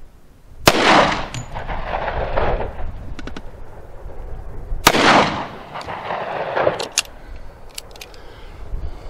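Two pistol shots from a Ruger SR1911 firing .45 ACP Federal Hydra-Shok hollow points, about four seconds apart. Each shot is followed by a long echo off the surrounding hills.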